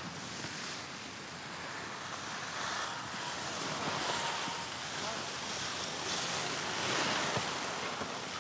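Steady rushing noise of wind and skis sliding on packed snow, swelling and easing a few times.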